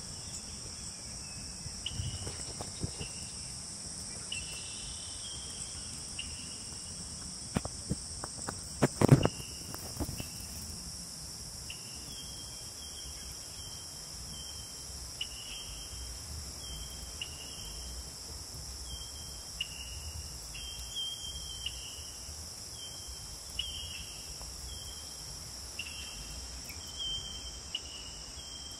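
Continuous high-pitched drone of insects in the grass, with short chirps repeating about once or twice a second through the second half. A few sharp clicks and a louder knock about nine seconds in.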